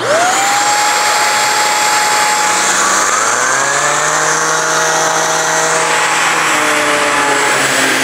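Shark Stratos corded stick vacuum switching on with its small motorized hand tool: the motor whine rises quickly to a steady high pitch and runs on, and about three seconds in a second, lower hum joins as the tool works the carpet.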